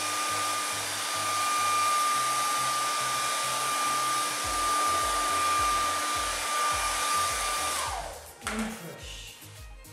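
Hand-held hair dryer blowing steadily with a high whine, switched off about eight seconds in, its whine falling away as the motor spins down. A steady-beat background music track plays underneath.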